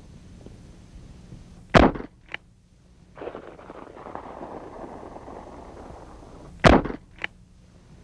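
Two gunshots about five seconds apart, each followed about half a second later by a fainter, sharper crack.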